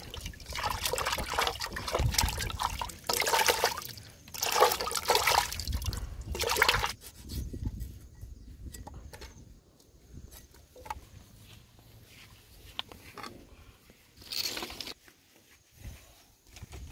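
Bamboo shoots being rubbed and sloshed by hand in a metal pot of water, splashing in irregular bursts for about seven seconds. Then it goes much quieter, with a few light taps as the shoots are cut with a cleaver.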